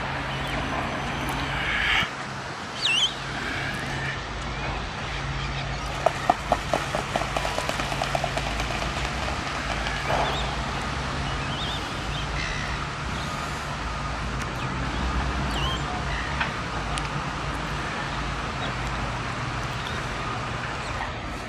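Black swan running across the water surface, its feet and wings slapping the water in a quick run of about fifteen slaps that speed up over two seconds, with splashing. A steady low hum sits underneath, and there are a couple of short, high, rising bird calls.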